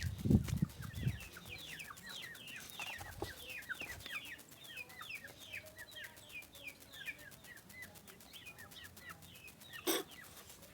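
Baby chicks peeping: a steady run of short, high, falling peeps, several a second. A low rumble in the first second and a single sharp knock near the end.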